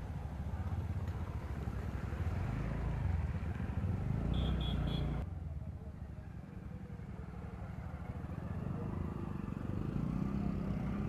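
The TVS Ntorq scooter's single-cylinder engine and the ride make a steady low rumble as it rolls along a wet road. About four seconds in come three short high beeps, and just after five seconds the sound changes abruptly.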